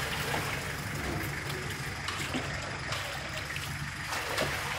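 Water pouring from a plastic jug into a large aluminium cooking pot of meat broth, a steady gushing splash as the broth is topped up with water.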